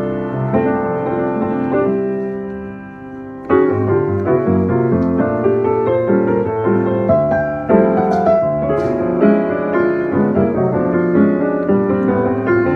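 Piano playing chords and melodic runs. A chord is held and dies away between about two and three and a half seconds in, then the playing comes back in strongly and continues.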